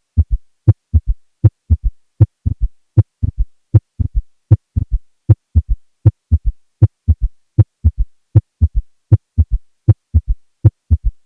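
Heart sounds with a third heart sound (S3 gallop): each cycle is a triplet of thuds, S1 and S2 followed closely by a soft, low-pitched early diastolic S3, repeating steadily about 78 times a minute. In people over 40 an S3 is usually pathologic and a sign of left ventricular failure.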